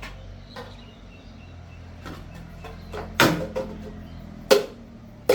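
A monkey banging a baseball bat against its enclosure: a few sharp knocks, two loud ones about three and four and a half seconds in and another at the end.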